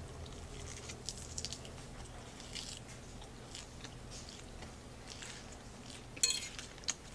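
Close-miked chewing of a spinach and chicken salad: soft, wet crunching and mouth clicks. Near the end comes a short clatter, the fork against the plate.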